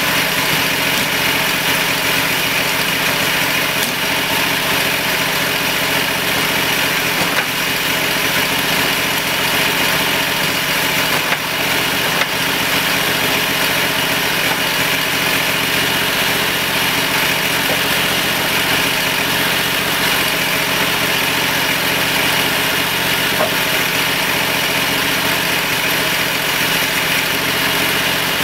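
The 22-horsepower V-twin engine of a homemade bandsaw sawmill runs steadily, with no change in speed, while it drives the band blade through a hemlock log.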